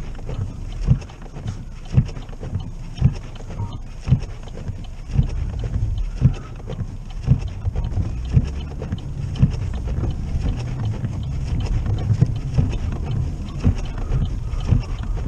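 Windshield wipers thumping at the end of each sweep about once a second over the steady low rumble of a car moving slowly through heavy snow.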